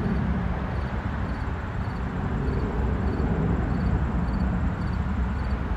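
Outdoor ambience: a steady low rumble, with faint high insect chirps repeating about twice a second.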